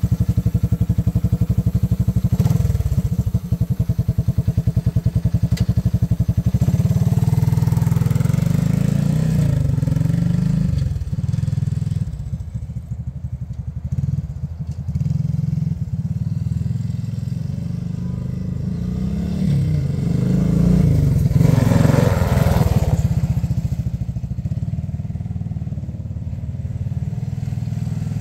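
Honda ATC200S three-wheeler's four-stroke single-cylinder engine, first idling with an even beat, then ridden off, its note rising and falling as it accelerates and eases off. It grows loudest again about twenty-two seconds in.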